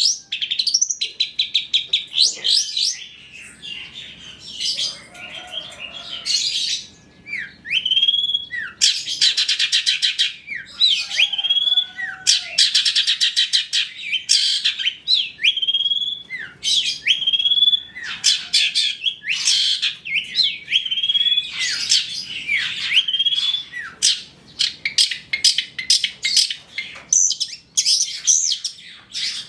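Long-tailed shrike (cendet) singing a continuous, varied song: fast chattering trills alternating with short hooked whistles.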